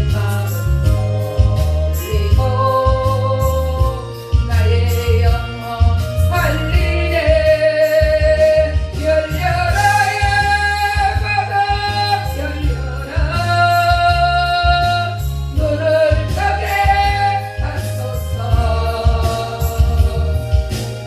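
Korean gospel song: a solo voice sings long held notes over a backing track with a steady bass line.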